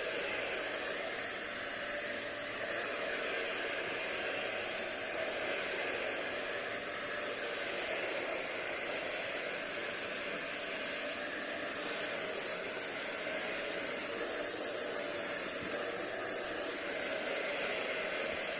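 A EuroPro 2-in-1 vacuum with a suction-only floor head, running steadily on a hard floor: a constant rush of airflow with a thin high whine from the motor.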